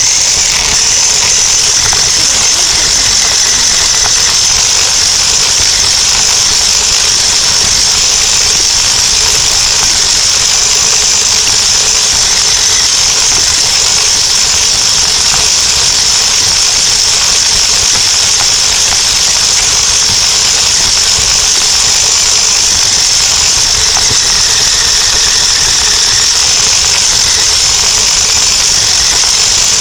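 Electric motor and gearbox of a toy RC truck running steadily while it drives, picked up very close by a phone taped to the truck: a loud, steady high-pitched whine over a rumble of noise.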